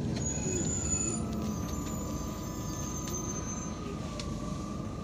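Interior sound of an Irisbus Citelis 12M city bus with an Iveco Cursor 8 diesel engine: a steady low engine rumble, with a thin whine that falls in pitch over the first couple of seconds as the bus slows, then holds at one pitch.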